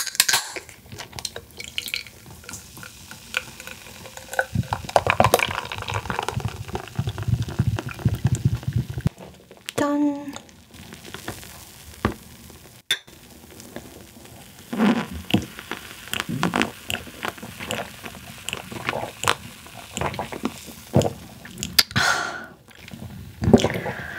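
Beer poured from a can into a glass, a fizzing pour lasting about five seconds. Then scattered light clicks and knocks of glasses and tableware.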